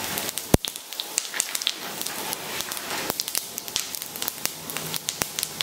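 Fennel seeds sizzling and crackling in hot mustard oil in a kadhai, a steady hiss with many small pops. A sharp click about half a second in and another near the end.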